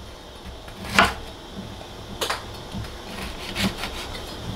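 Knife cutting lemons on a wooden cutting board, with a few sharp knocks of the blade on the board, the loudest about a second in.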